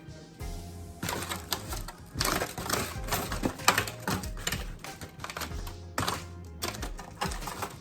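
Rapid, irregular clicking and clattering of food and utensils being handled in a pan, over background music with a steady low beat.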